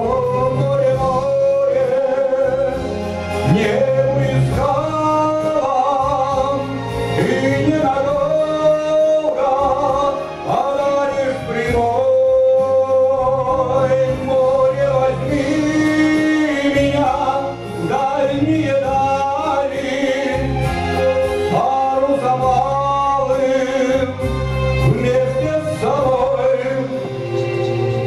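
A man singing a song into a handheld microphone over instrumental accompaniment.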